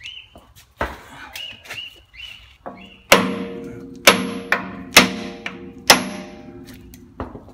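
Hammer blows on the steel studs of a Toyota Land Cruiser swivel hub, knocking the tapered cone washers loose: four hard, ringing metal strikes about a second apart, after a few lighter knocks.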